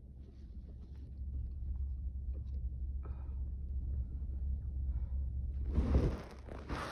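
A man sneezing in a sneezing fit: a low rumble grows louder for several seconds, then near the end comes a sudden loud sneeze followed by a hissing rush of air.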